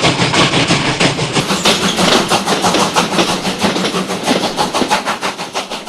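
Steam train running, with a fast, even rhythm of strokes that gradually fades away.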